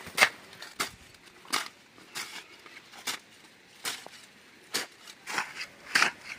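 Short-handled hand hoes chopping into loose soil between okra plants, a dull strike roughly every three-quarters of a second, about nine in a row.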